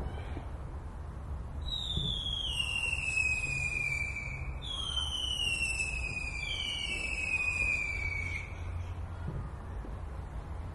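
Whistling fireworks: three long whistles, each falling in pitch, the second and third overlapping. They sound over a steady low rumble with a few faint pops.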